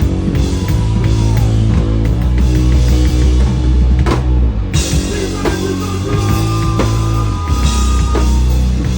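A band playing, led by a drum kit laying down gospel-style chops over sustained bass notes and held chords. The cymbal sizzle drops out briefly about four seconds in, then comes back.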